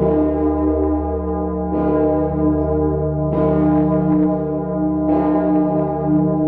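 A giant bell struck over and over, a fresh stroke about every one and a half to two seconds (four in all), each one ringing on into the next with a low, steady hum beneath.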